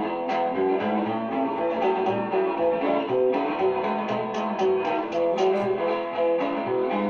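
Instrumental break of a rockabilly record playing from a vinyl LP on a turntable: a guitar picks a run of single notes over a bass line, with light percussion ticks.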